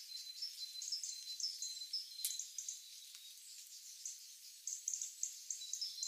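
Faint outdoor ambience of small high-pitched chirps repeating at irregular intervals over a thin steady high tone, with a single sharp click a little over two seconds in.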